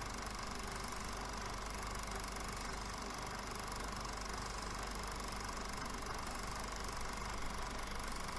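Film projector running: a steady mechanical whir with a rapid, even clatter from the film transport.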